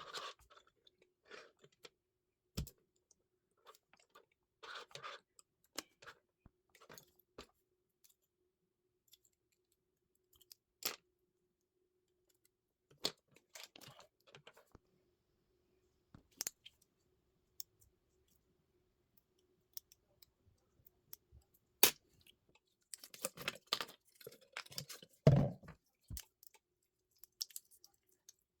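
Small tools and parts being handled on a workbench: scattered light clicks, taps and rustles over a faint steady hum, with a busier cluster of knocks and one heavier thump near the end.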